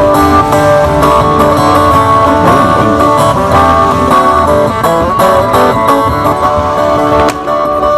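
Solo acoustic guitar played fingerstyle: a plucked melody over low bass notes.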